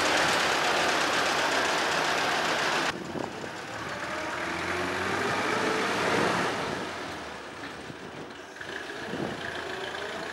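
1922 Maxwell charabanc's engine running as the vehicle moves off, loud and dense at first. After a sudden cut about three seconds in, the charabanc drives past, getting louder to a peak about halfway through and fading, then building again with a faint whine rising in pitch near the end.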